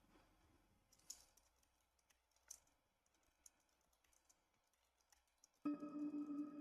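A few faint, scattered computer keyboard clicks over near silence. About five and a half seconds in, a steady held tone with a few overtones starts and carries on.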